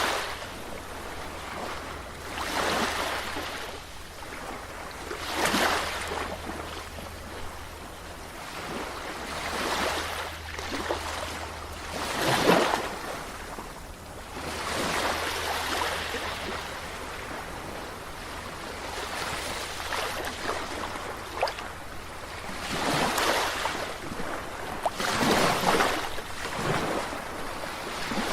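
Sea waves washing against the shore, the rush of water swelling and falling away every two to three seconds. A steady low hum sits underneath and fades out about halfway through.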